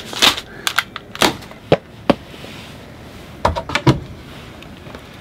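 Scattered knocks, clicks and clunks of things being handled and set down, with a small cluster of thuds near the end.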